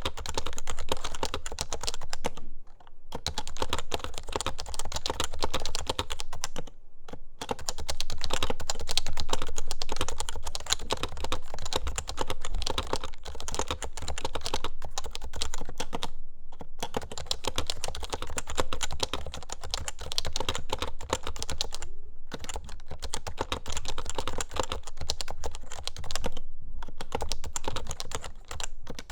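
Steady fast typing on an HHKB Hybrid keyboard with Topre switches, a dense run of key strokes. There are brief pauses about 3, 7, 16, 22 and 26 seconds in.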